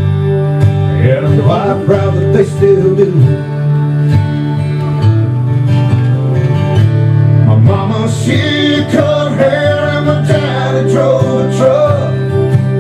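Country song with plucked guitar and a sung vocal line that comes in twice over a steady accompaniment.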